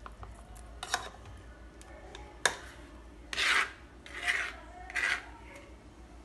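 Kitchen knife blade scraping scraps of chopped vegetable across a plastic cutting board: a couple of sharp taps, then three short scrapes about a second apart in the second half, the first the loudest.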